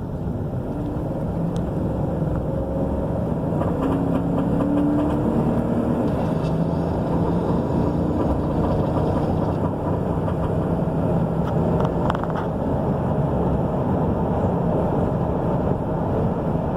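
Chevrolet Silverado's 5.3-litre V8 running under load, its sound building over the first few seconds and then holding steady. The engine has a persistent misfire that leaves it down on power.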